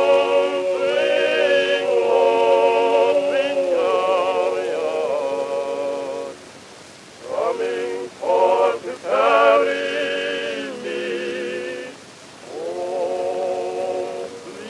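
Background vocal music: singing with long held notes and vibrato, breaking off briefly about halfway through and again near the end.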